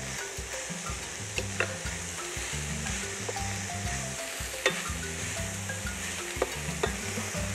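Wooden spatula stirring shredded saltfish and chopped herbs in a hot stainless-steel sauté pan, over a steady frying sizzle, with a few sharp clicks of the spatula against the pan, the loudest about halfway through.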